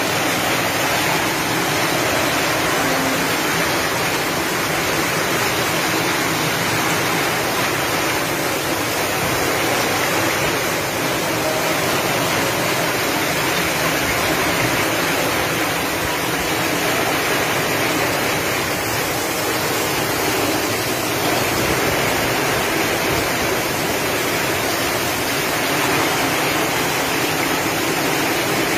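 Heavy tropical rain pouring down, a steady loud rush of falling water.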